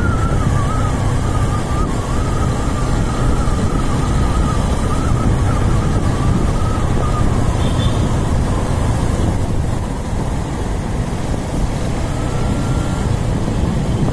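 Motorcycle on the move: a steady rush of wind on the microphone over the engine, with a faint wavering high tone through the first half.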